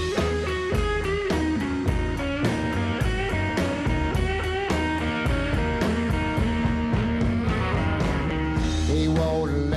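Live roots-rock band playing an instrumental passage: an electric guitar lead with bent notes over a steady drum beat and double bass.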